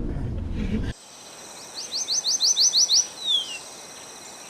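A songbird singing a quick run of about eight short rising notes, followed by a single falling note. For about the first second, a car's interior rumble is heard before it cuts off suddenly.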